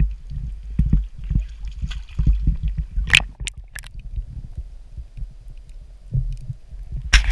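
Water sloshing and gurgling against a waterproof action-camera housing at the sea surface, over a low rumble. A few sharp splashes come about three seconds in as the camera goes under, then the sound turns muffled and dull underwater.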